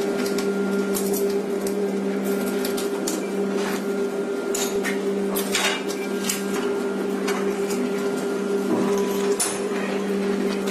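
Steel frame parts of a printer stand clinking and knocking as they are handled and fitted together, with several sharp clinks scattered through, over a steady low hum.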